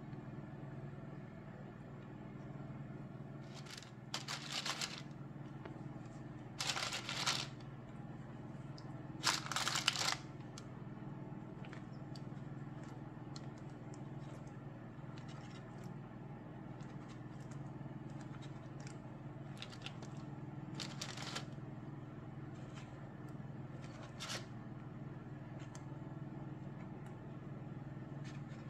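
Parchment paper and plastic wrap crinkling as hands press and dimple soft bread dough in a lined baking pan: three louder rustles in the first ten seconds, then short, softer rustles and ticks, over a steady low hum.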